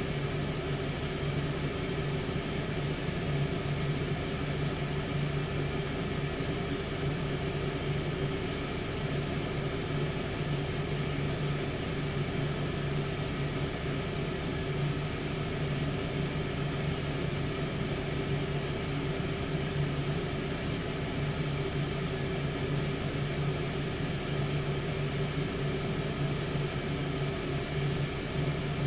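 Tower air fryer oven running, its fan making a steady, even hum with a constant whirring tone.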